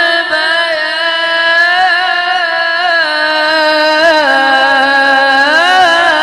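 A young man's melodic Quran recitation (tilawat) into a microphone, holding one long drawn-out vowel at a steady pitch, with ornamented turns of the voice about four and about six seconds in.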